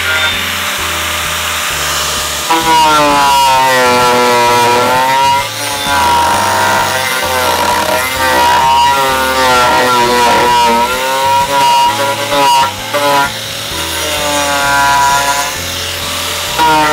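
4-1/2-inch angle grinder with a medium-grit Holey Galahad carbide carving disc, grinding away the edge of a wooden board. The motor's whine drops in pitch each time the disc bites into the wood and rises again as it eases off, several times over.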